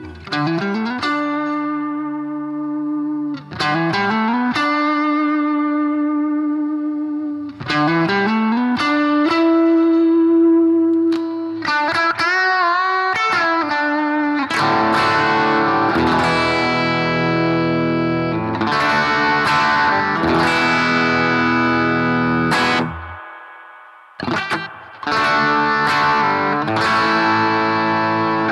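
Electric guitar played through a BOSS GT-1000 Fender Deluxe-style amp model and Two Notes Cab M, with light overdrive: held single notes with string bends and vibrato, then strummed chords from about halfway, with a short break near the end.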